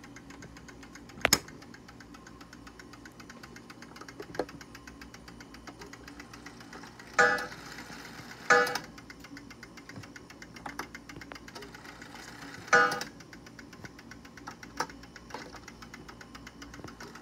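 Waterbury mantel clock movement ticking steadily, while its minute hand is turned by hand. A sharp click about a second in and three short metallic rings later on.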